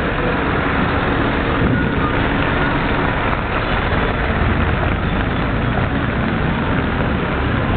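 Steady wash of rain and road traffic on a wet city street: vehicles passing close by with tyre noise on the wet road, under rain falling on the pavement and on an umbrella overhead.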